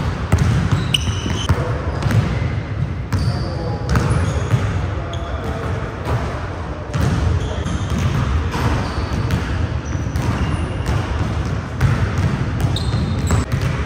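Basketballs bouncing on a hardwood gym floor: several balls being dribbled at once, the bounces irregular and overlapping, with short high squeaks now and then.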